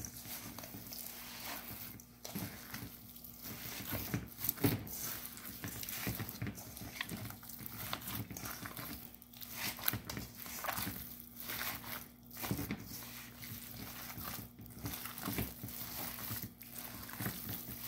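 Plastic-gloved hand squishing and kneading raw ground beef mixed with egg, breadcrumbs and chopped vegetables in a stainless steel bowl, in irregular wet strokes. A faint steady hum runs underneath.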